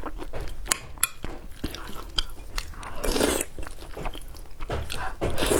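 Close-miked eating: biting and chewing with many sharp crunches and wet clicks, and a louder crunching burst about three seconds in and again near the end.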